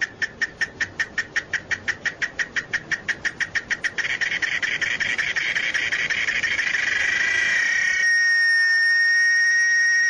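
Cicada calling: sharp, even pulses at about six a second that speed up into a continuous trill, then settle about 8 seconds in into one steady, high, whistling tone.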